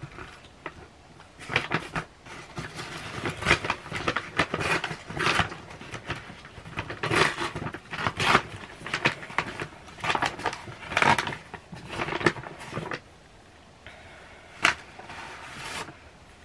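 Takeout food packaging being handled and unpacked: irregular rustling and crinkling with clicks and knocks. It is busiest for the first dozen or so seconds, then goes quieter, with one sharp click near the end.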